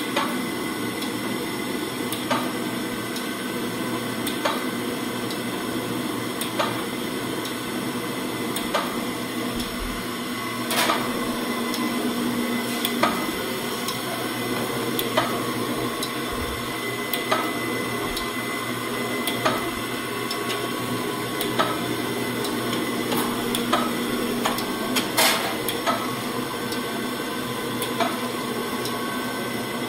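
Gallmeyer & Livingston No. 35 surface grinder running under power, with a steady hum from its motor and hydraulics. A sharp clunk comes about every two seconds as the hydraulic table reverses at the end of each stroke.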